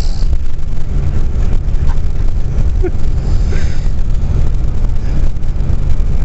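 Steady low rumble of a moving vehicle heard from inside the cabin.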